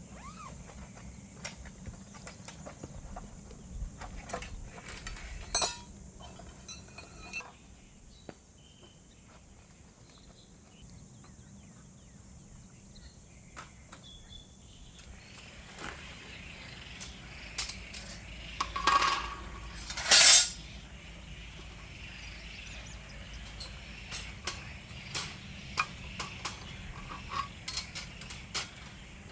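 Metal camp cooking gear clinking and knocking as a tripod cooking stand is set up, with scattered light clicks and two loud knocks a little past the middle. A soft hiss joins from about halfway.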